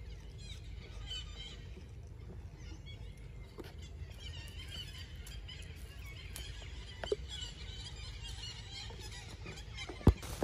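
Infant long-tailed macaque giving faint, wavering high squeals on and off, over a steady low rumble. A sharp knock sounds near the end.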